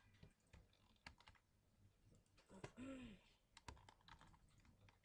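Faint, scattered keystrokes on a computer keyboard, a few clicks at a time. A short hum from a voice about halfway through.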